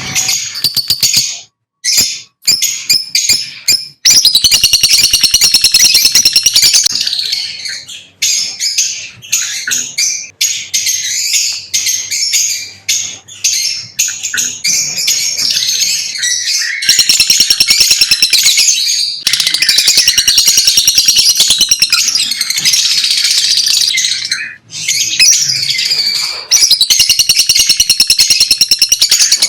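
Lovebirds chattering in long runs of rapid, high-pitched chirps, broken by a few brief pauses.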